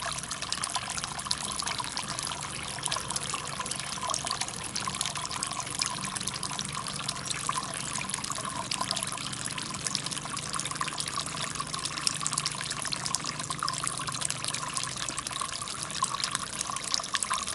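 Water trickling and splashing steadily as thin streams spill from one glazed stoneware jar into the next in a small jar fountain.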